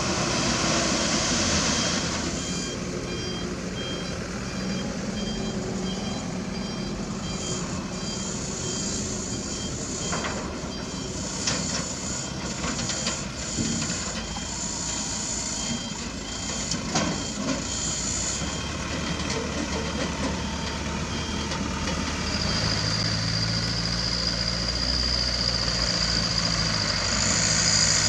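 Diesel dump truck engine running while its tipper bed is raised to dump dirt, with a reversing beeper sounding a row of evenly spaced beeps through the middle stretch. A few sharp knocks come around the middle, and near the end the engine hum grows stronger with a steady high whine over it.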